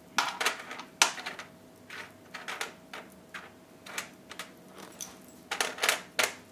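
Hard square pretzels clicking and rattling against a metal baking sheet and against each other as they are picked up and rearranged by hand. The taps are irregular and light, with a quick cluster of them near the end.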